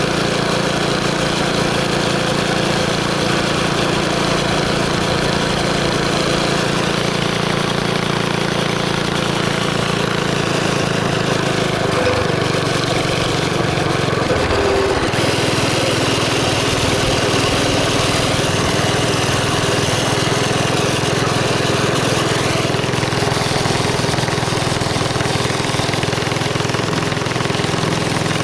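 Mini bike's small engine running steadily, with a brief change in engine speed about halfway through.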